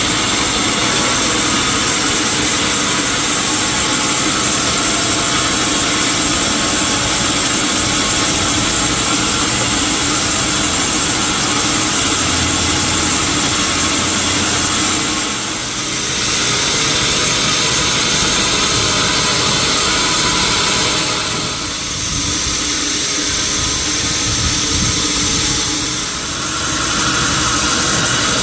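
Sawmill machinery running steadily and loudly, dipping briefly about halfway through and twice more near the end.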